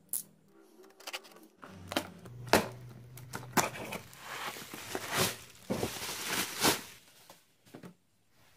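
A tape-wrapped parcel being cut with scissors and torn open: several sharp snips and clicks, with crinkling plastic and paper packaging rustling most in the middle, dying away near the end.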